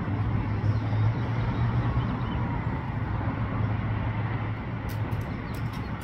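A low, steady engine hum over outdoor background noise, easing off about five seconds in, with a few faint sharp clicks near the end.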